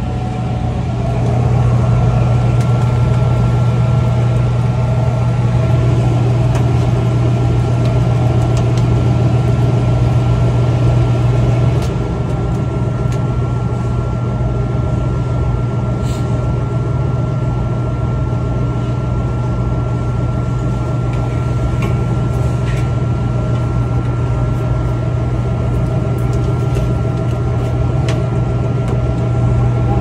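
Evaporator fan motor in a refrigerated produce display case running, a steady low hum with a faint steady high whine above it.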